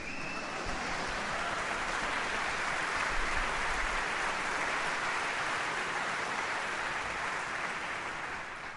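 Concert audience applauding, swelling in the first second and dying away near the end.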